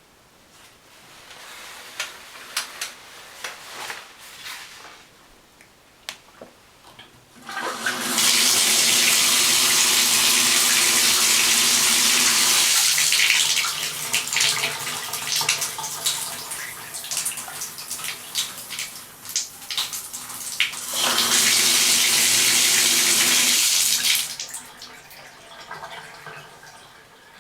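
Shower water running: after a few scattered clicks and knocks, the water comes on suddenly about eight seconds in as a loud, steady spray, wavers and eases for a while, surges back, then shuts off a few seconds before the end, with a faint steady hum in the pipes underneath.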